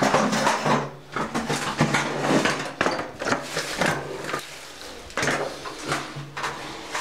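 Thin plastic drop-cloth sheeting rustling and crinkling in a run of irregular strokes as it is handled and smoothed against the wall. A steady low hum runs underneath.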